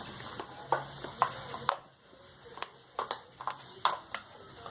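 Thickening glue slime being stirred and worked in a pot, giving a dozen or so irregular sticky clicks and squelches.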